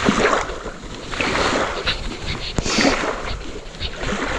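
Damp groundbait crunching and rustling as it is squeezed and packed by hand, in several squeezes about a second apart, with one sharp click about two and a half seconds in.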